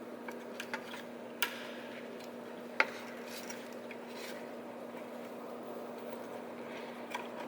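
A few light metallic clicks and taps, the sharpest almost three seconds in, from the wiring connectors being pulled off the back of a motorcycle's stock horn, over a steady low hum.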